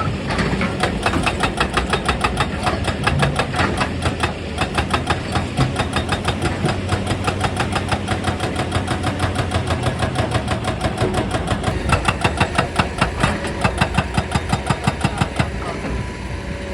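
Excavator-mounted hydraulic rock breaker hammering stone in a fast, even rhythm of about four to five blows a second, over the excavator's running diesel engine. The hammering eases briefly around four seconds in and stops near the end.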